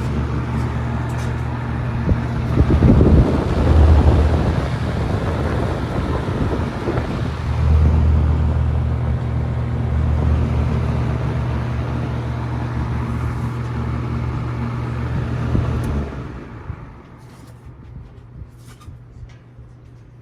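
Vintage Windsor box fan running on high: a steady rush of air over a low motor hum, with heavier low rumbles about three seconds in and again around eight seconds. The sound drops off sharply near the end, leaving a few faint clicks.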